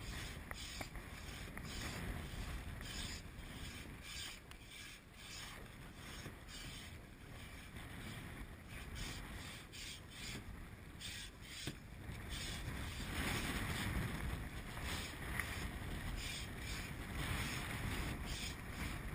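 Wind buffeting the microphone over sea water lapping at an inflatable boat, with occasional rustles and knocks as a kitesurf kite is pulled from its bag and handled on the tubes. The noise grows louder for a couple of seconds past the middle.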